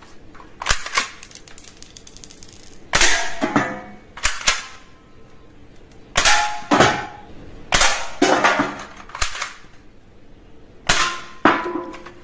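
Toy guns firing: a string of about ten sharp shot sounds at uneven intervals, each with a brief ringing tail.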